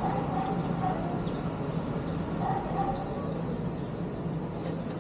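A dog barking a few times, faintly, over a steady low hum.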